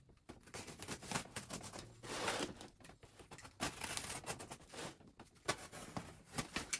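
Utility knife slitting clear packing tape along the seams of a cardboard box, a run of short irregular scraping and crackling strokes with a longer rasp about two seconds in.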